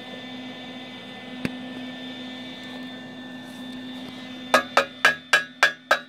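A steady machine hum, then, about four and a half seconds in, a chipping hammer starts striking the freshly welded steel exhaust pipe: six sharp, ringing metal taps at about four a second.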